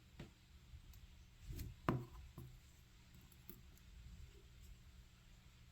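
Faint scattered clicks and taps of small metal lock parts being handled, the loudest about two seconds in, as pins are taken out of a disassembled Assa 700 lock.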